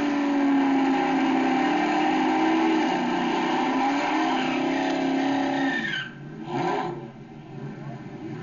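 An LS1 V8 held at high revs through a drag-strip burnout, rear tyres spinning. The engine note is steady with a slight waver, then drops away sharply about six seconds in, with one short burst just after.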